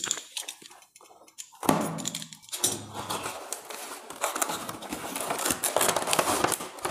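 Cardboard toy box being opened and its plastic-trayed makeup kit slid out: a sudden knock about a second and a half in, then steady scraping and rustling of cardboard and plastic with many small clicks.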